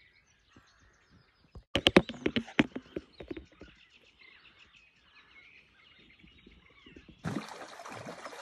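Faint bird chirping, broken about two seconds in by a quick run of sharp knocks and clatters, with a rush of noise near the end.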